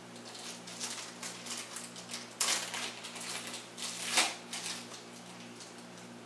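Handling noise as small lathe-chuck parts are taken from their box and packaging: a run of rustles and light clatter, the loudest about two and a half and four seconds in, dying away near the end. A steady low hum runs underneath.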